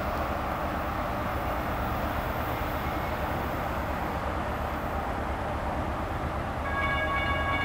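Low, steady rumble of an approaching diesel train. Near the end, the locomotive's air horn starts sounding a steady multi-note chord for the grade crossings.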